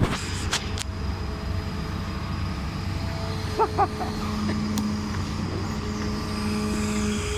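Diesel engines of heavy earthmoving machinery running with a steady low drone, with a few sharp knocks near the start and two short, quick tones about halfway through.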